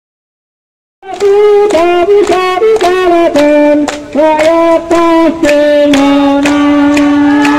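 After about a second of silence, singing starts: a melody with long held notes over a steady sharp beat.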